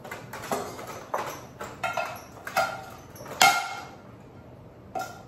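Cookware being knocked while cooking: a series of sharp knocks with a short metallic ring, roughly one every half second to second. The loudest comes about three and a half seconds in, followed by a short lull and one more knock near the end.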